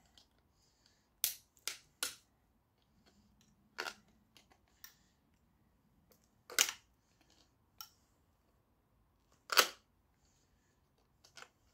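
Sharp clicks and knocks of a screwdriver prying at the clips of an electric motor's steel casing, scattered one at a time with quiet gaps between them.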